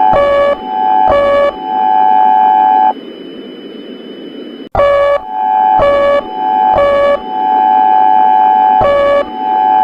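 Electronic emergency alert alarm: a steady high tone broken about once a second by short, lower, buzzy beeps. Near the middle it drops out to a faint hiss for under two seconds, then comes back with a click.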